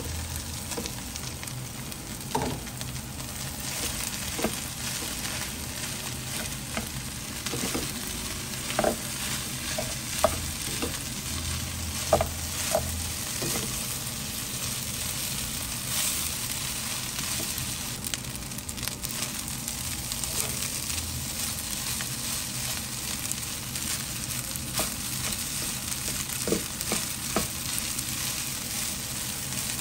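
Fried rice sizzling in a nonstick wok as it is stirred and broken up with a plastic spatula: a steady frying hiss, with a handful of short taps of the spatula against the pan.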